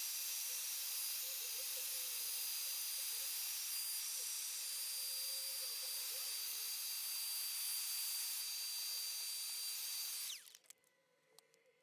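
Vacuum cleaner running, a steady high motor whine over a rush of air as it picks up dust. About ten seconds in it switches off, the whine falling away.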